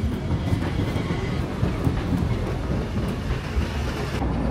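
Low-floor articulated tram rolling past a tram platform: a steady rumble of steel wheels on rails.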